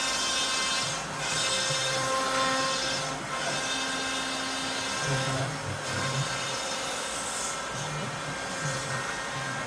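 A power tool running steadily while working wood, a continuous motor whine and cutting noise with small changes in load.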